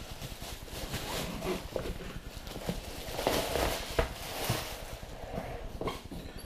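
Thin plastic bag crinkling and rustling as a padded carrying case is slid out of it, with irregular small knocks from handling the case on a counter.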